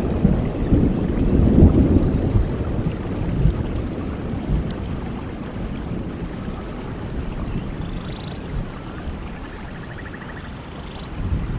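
Steady rain with a low rumble of thunder that dies away over the first few seconds.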